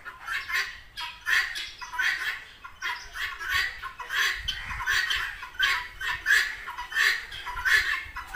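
A flock of farmyard fowl calling, short calls repeated about three times a second.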